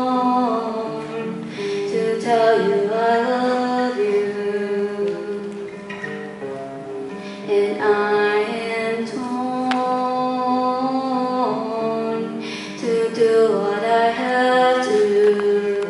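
A woman singing long, held, gliding notes to her own acoustic guitar accompaniment.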